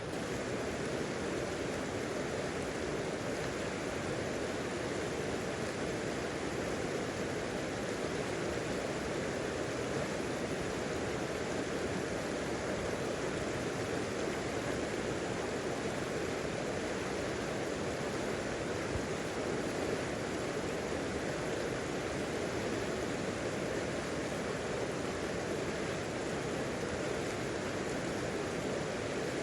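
Rushing river water: a steady, even rush that holds constant throughout.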